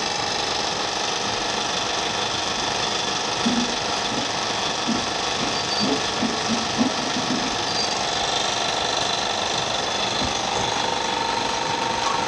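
Puffed-rice (muri) roasting machine running steadily: electric motors turning stirring rods in the roasting pots, with a large rotating drum, making a constant mechanical running noise.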